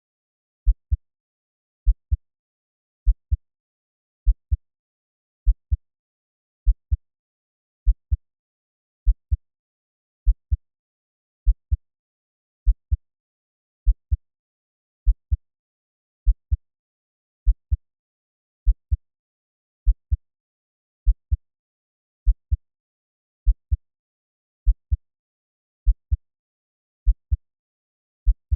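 A slow heartbeat at 50 beats per minute, steady and deep. Each beat is a low double thump, lub-dub, coming about every 1.2 seconds, with silence between beats.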